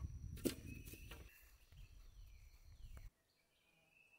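Wooden boards knocking together as they are carried, a few sharp knocks over rustling, with a bird chirping. About three seconds in the sound drops off sharply to quiet outdoor air with a faint bird call.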